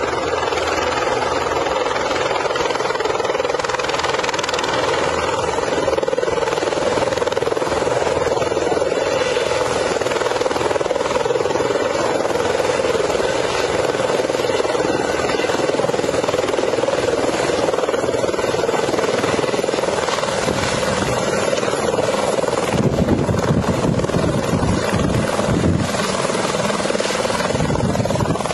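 Light single-engine helicopter's turbine and main rotor running steadily as it hovers low and sets down on grass. Near the end it is on the ground with the rotor still turning.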